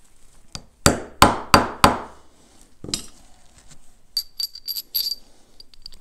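Steel parts of a Pharos hand coffee grinder's axle and burr assembly being knocked together as the key is fitted: four sharp metal taps about a third of a second apart, each ringing briefly, then lighter, high-ringing metal clinks about four to five seconds in.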